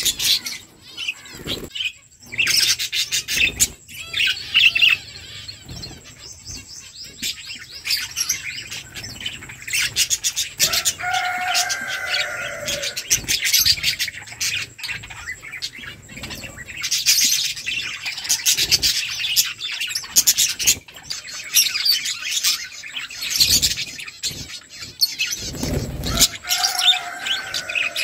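A flock of budgerigars chirping and chattering without a break, many short high calls overlapping. A lower call that falls in pitch sounds twice, about eleven seconds in and near the end.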